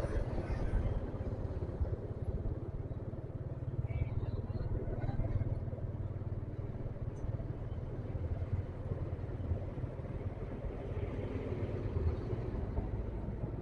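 Motorcycle riding at a steady pace: engine and road noise at an even level, with a steady low rumble.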